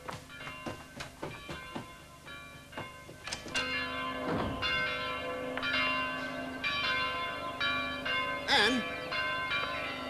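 Church bells pealing, many strikes overlapping and ringing on. A voice calls out briefly near the end.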